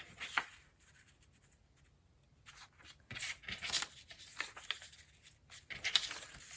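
Sheets of paper rustling and sliding as they are picked up and laid together, in several short bursts.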